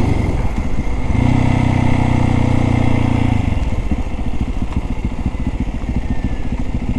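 Single-cylinder dirt bike engine under way: a steady drone under light throttle with a brief dip just under a second in, then the throttle rolled off about three and a half seconds in to a lower, pulsing putter as the bike slows.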